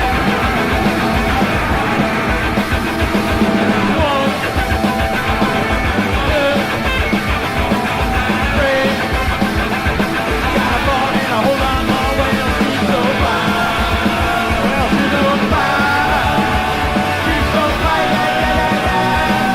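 Punk rock band recording playing at full volume: a driving drum beat and electric guitars, with shouted lead vocals.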